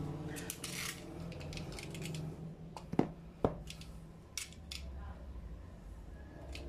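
Snap-off box cutter handled and slitting the seal on a cardboard phone box. A cluster of scratchy clicks comes in the first second, then two sharp clicks about three seconds in, then short scraping strokes as the blade cuts the seal sticker.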